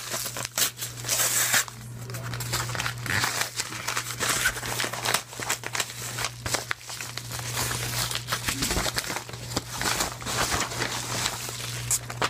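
Yellow padded mailer envelope being torn open and handled: dense, irregular crinkling, rustling and tearing of paper, with a steady low hum underneath.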